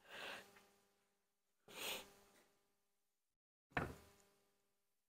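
Faint handling noise from a handheld phone: three short rustling, breath-like noises about two seconds apart, the last a sharper knock, over a faint steady hum.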